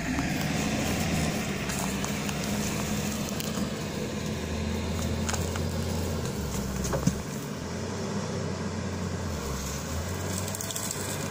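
Nissan Patrol's engine running steadily with a low hum as it tows a large boulder on a rope, with a few faint crackles from the stone dragging through dry grass.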